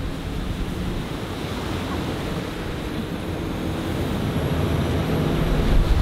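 Military riverine patrol boat running at speed: a steady engine drone mixed with rushing wake water and wind.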